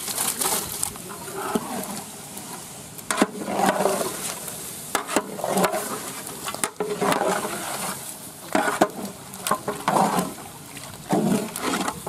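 Raw lamb pieces tipped into hot oil and spice paste in a large metal cooking pot, sizzling, then stirred with a long metal spatula: repeated scrapes and sharp knocks of metal against the pot among the wet meat.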